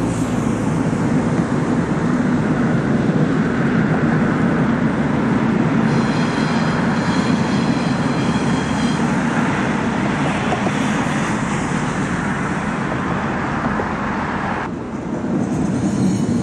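Passenger train crossing the railway bridge, a steady rumbling run of wheels on rails, with a high thin whine for a few seconds midway. The sound changes abruptly near the end.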